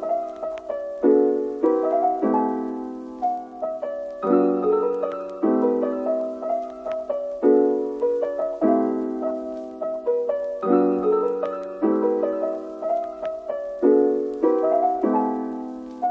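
Background piano music: soft chords struck about once a second, each ringing out and fading before the next.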